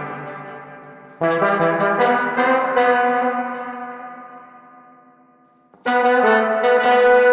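Brass-section music processed through a tube-driven spring reverb. A quick run of short horn notes about a second in rings out in a long reverb tail that fades away over several seconds, and another horn phrase comes in near the end.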